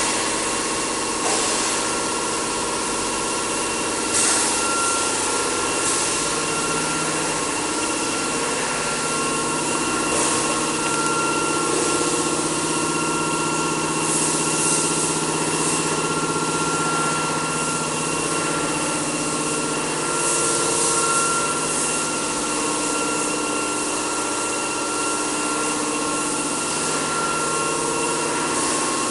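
Aerosol can filling line machinery running steadily: a continuous motor hum with several steady whining tones, and brief hisses every few seconds.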